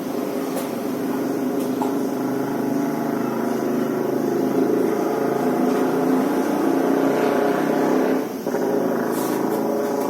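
A motor running steadily, with a brief dip about eight seconds in.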